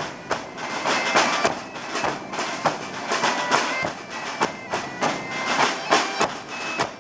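Traditional Portuguese street band: large rope-tensioned bass drums (bombos) beating a quick, steady rhythm while a bagpipe (gaita de foles) plays a held, reedy melody over it.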